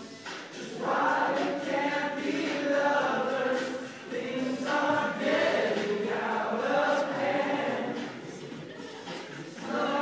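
A group of young men singing a serenade together, several voices in unison in sung phrases, briefly softer near the end.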